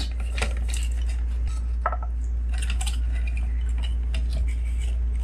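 Scattered light clicks and knocks of a speaker crossover board and its wired parts being handled and lifted out of the cabinet, over a steady low hum.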